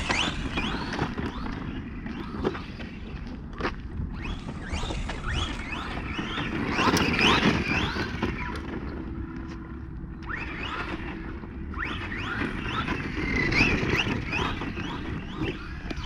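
Electric RC monster truck on a 3S battery driving hard over dirt, its motor whine rising and falling in pitch again and again with the throttle, loudest about seven seconds in and again near the end.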